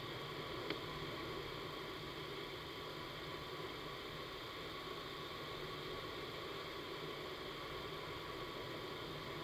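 Indoor vertical wind tunnel running: a steady rush of air with fan hum and faint steady tones, and one small click about a second in.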